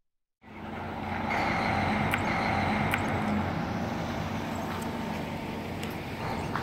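Steady low hum of idling vehicle engines under a wash of outdoor noise. It starts suddenly about half a second in, after a moment of silence, with a few faint clicks.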